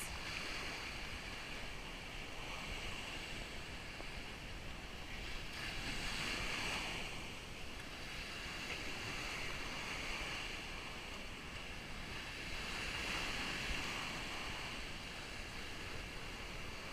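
Gentle surf washing on a sandy, rocky beach, a steady hiss that swells twice as small waves come in.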